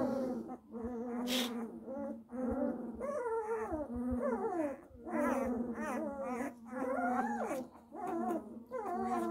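A newborn Bernese Mountain Dog puppy whining and crying in a string of short calls, many sliding down in pitch, as it fusses at being handled.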